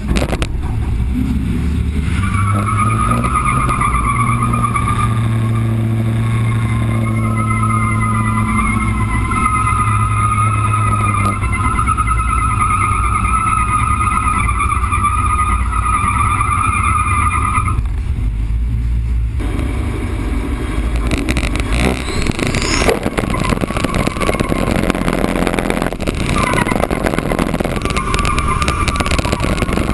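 Pickup truck's engine running hard while its tyres squeal in a wavering tone, as in a burnout. The squeal stops about eighteen seconds in and rough, loud engine and tyre noise takes over.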